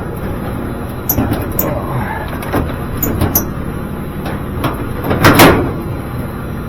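Sheet-metal dryer cabinet panel being worked onto its tabs: a few light metal clicks, then a louder scraping clunk about five seconds in as it slides into place.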